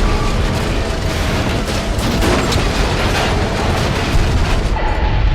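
Sound effect of a large starship explosion, the Rhydonium-laden cruiser blowing up: a deep continuous rumble full of sharp cracks and blasts. The highest hiss dies away near the end.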